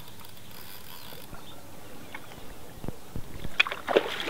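Fishing reel ticking as line is wound in, then a hooked fish splashing at the surface near the end as it is drawn to the landing net.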